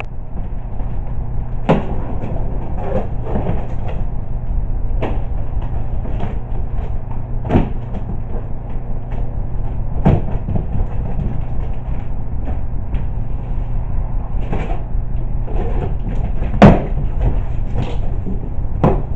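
Cardboard mower shipping box being opened and handled: scattered knocks, scrapes and thumps, the sharpest one near the end, over a steady low hum.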